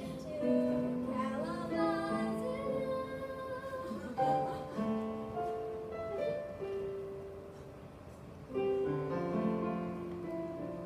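A young girl singing solo, holding each note. There is a short pause for breath about eight seconds in, then the singing picks up again.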